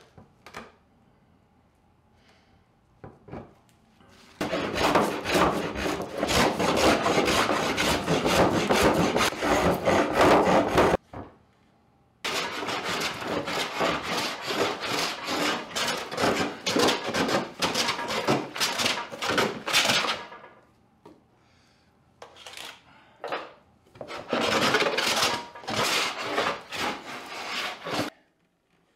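Hand plane taking rapid strokes over a glued-up wooden table top to flatten it: a dense rasping of blade on wood in two long runs, then shorter bursts near the end, with a few light knocks before it starts.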